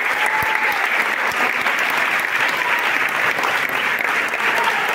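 Large audience clapping steadily and densely.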